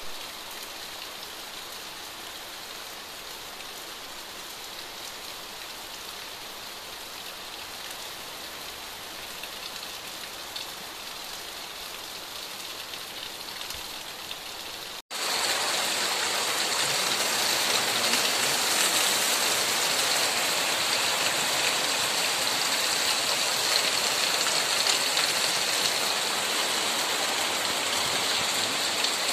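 Heavy rain falling steadily on foliage and roofs. About halfway through there is a sudden break and it comes back louder and hissier.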